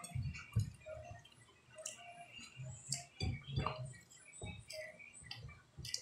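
Close-up eating sounds of a man eating with his hands: chewing, with irregular small clicks and soft taps of fingers on a plate.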